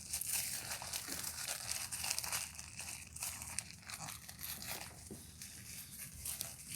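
Paper crinkling and rustling as it is handled, with irregular crackles and some tearing.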